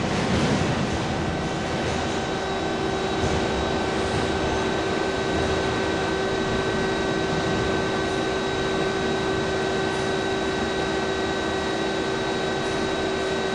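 Earthquake-simulation shake table running, a steady machine hum with several constant tones. A louder, rough rattle comes in the first second, as the rig and the furniture on it shake.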